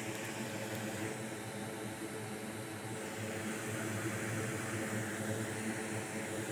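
A small electric fan running steadily: a whirring hum with an airy hiss, a little louder from about halfway through.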